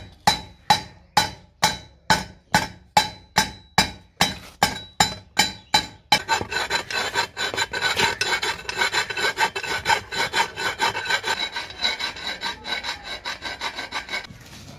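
A hand tool rasping back and forth on metal pipe of a hand pump. It starts at about two even strokes a second, then from about six seconds in the strokes come faster and closer together until just before the end.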